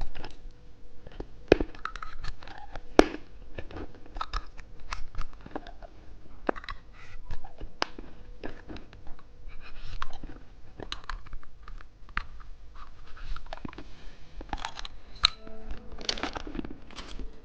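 Close-up chewing and crunching of watermelon bubble gum: many short, sharp crackles and clicks in an uneven run.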